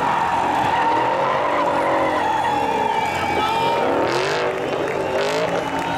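Ford Mustang RTR drift car sliding sideways, its rear tyres squealing in a steady high tone while the engine revs rise and fall under it. Two short bursts of hiss come about four and five seconds in.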